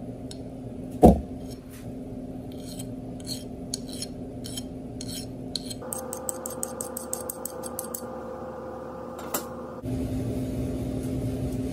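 Hand file scraping in short strokes across a small steel tailstock clamp piece to dress off its burrs, with a quick run of rapid strokes in the middle. A single sharp knock about a second in is the loudest sound.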